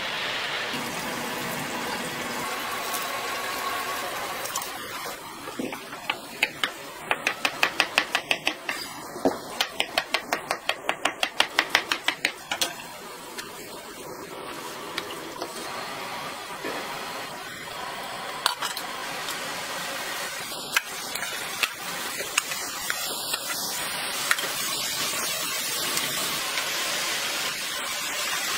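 Kitchen food-preparation sounds. A kitchen knife chops on a cutting board in a quick run of sharp knocks, three or four a second, through the middle of the stretch. A steady cooking hiss runs underneath.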